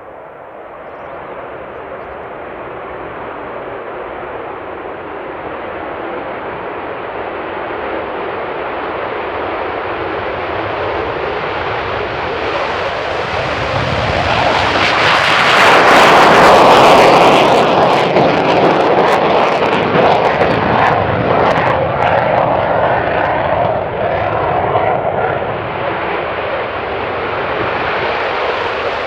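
F-15E Strike Eagle jet engines (twin Pratt & Whitney F100 turbofans) at take-off power: a loud steady jet roar that swells to its loudest about halfway through, crackling at the peak, then stays loud as the jet departs.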